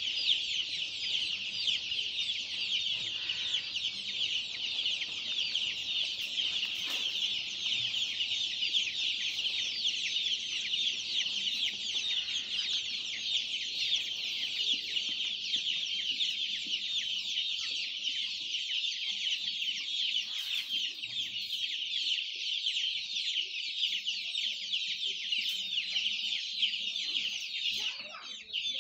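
Hundreds of young chicks peeping all at once: a dense, unbroken chorus of high cheeps.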